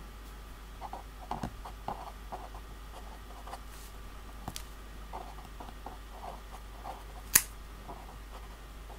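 Pen writing on paper: faint short strokes in two clusters, with one sharp tap about seven seconds in.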